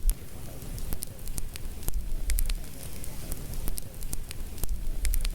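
Wood campfire crackling, with frequent sharp pops and snaps over a low rumble that swells a few times.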